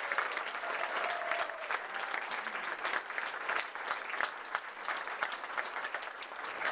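A roomful of people applauding, many hands clapping steadily without a break.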